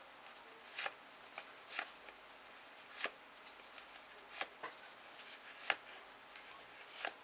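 Trading cards being leafed through by gloved hands, one card at a time, each card slipping off the stack with a short, soft snap every second or so.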